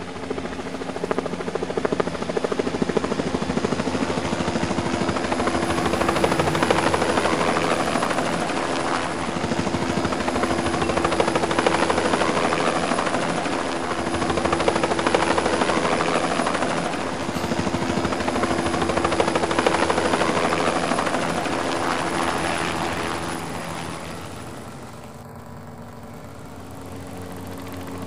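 Small battery-powered DC hobby motor spinning the plastic rotor of a homemade toy helicopter. It gives a steady motor hum under a rushing whir of the blades. The whir swells and fades every three to four seconds and drops away for a few seconds near the end.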